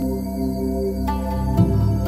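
Background music in a new-age style: sustained tones held under the picture, with a note change about a second in and a soft low beat near the end.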